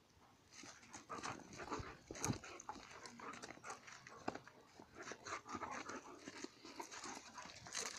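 Two dogs play-fighting at close quarters: a run of short, irregular dog noises that starts about half a second in.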